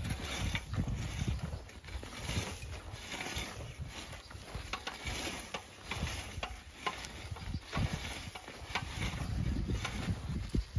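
Hand-pushed cycle weeder working dry, stony soil: its 10-inch spring-steel blade scrapes and crunches through the ground, with irregular clicks and knocks from stones and the metal frame.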